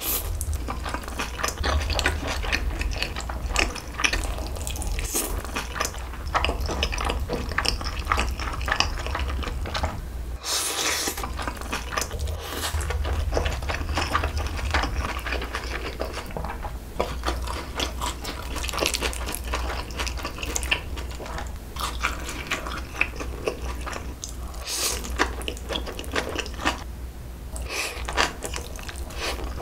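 Close-miked eating sounds: slurping noodles and chewing jokbal (braised pig's trotters), a constant run of wet smacking and crackling mouth noises with a few louder slurps, over a steady low hum.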